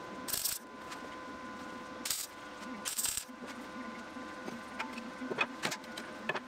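Metalworking on steel: several short bursts of abrasive scraping against a steady motor whine, with light metallic clicks near the end.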